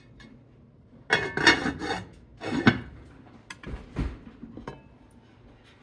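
Enameled cast-iron Dutch oven lids being handled on their pots: two loud bursts of scraping and rattling starting about a second in, then a few sharp clinks of lid against rim, one of them briefly ringing.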